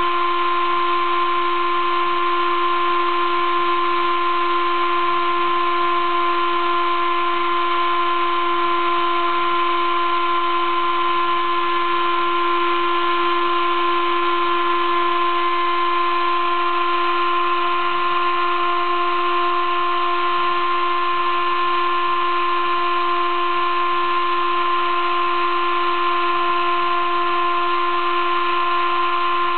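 Sable-2015 mini CNC mill engraving acrylic board with a 20-degree V engraving cutter: a steady whine of several pitched tones over a constant hiss, unchanging throughout.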